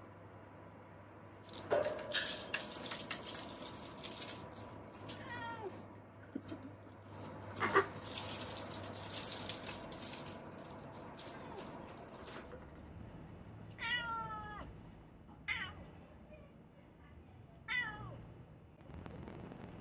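Cat teaser wand toy shaken and rattled for about ten seconds, with a few short cat calls among the rattling. Then a tabby cat meows three times, short calls a second or two apart.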